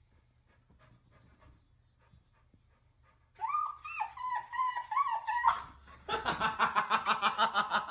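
A dog whining in a string of short, high, falling cries. About six seconds in it breaks into a rapid run of yips, about eight a second.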